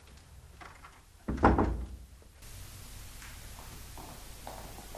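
A door shuts with a single heavy thud about a second and a half in, followed by a faint steady low hum.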